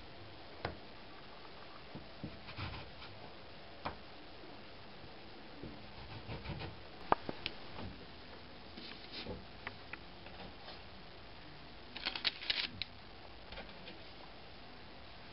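Faint, scattered clicks and light rustles of hands at work: a metal heart-shaped cookie cutter on rolled gingerbread dough and a parchment-lined baking sheet, with a quick run of clicks near the end.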